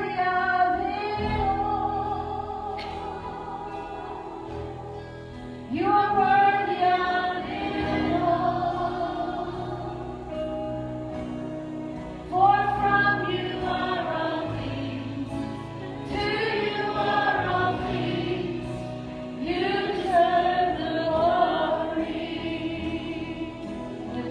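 Worship song: several voices singing over sustained instrumental accompaniment, with a new sung phrase starting about every six to seven seconds.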